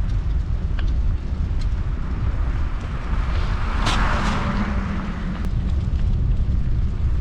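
Wind rumbling on the microphone of a moving bicycle, with a hiss of tyres on wet pavement that swells and fades about four seconds in, like a vehicle passing.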